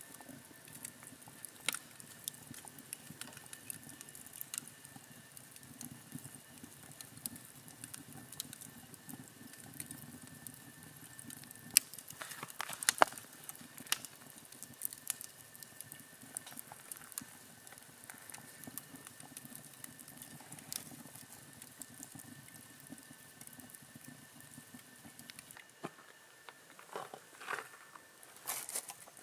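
Wood campfire crackling, with scattered sharp pops over a low steady rustle and a louder cluster of pops near the middle.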